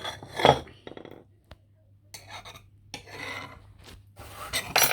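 A hot microwave bowl and its lid being handled: a sharp knock about half a second in, then several short rubbing, scraping clatters of the lid against the bowl.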